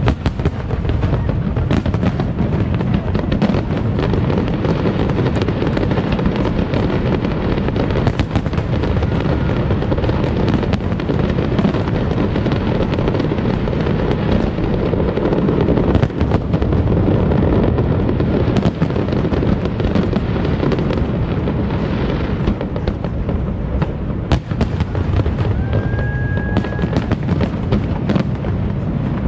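Aerial fireworks going off in a continuous barrage of many bangs.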